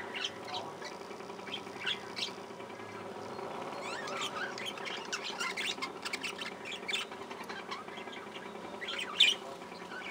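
A flock of budgerigars chattering, with many short chirps and squawks overlapping. The chatter is busiest in the middle, and one loud call comes just after nine seconds.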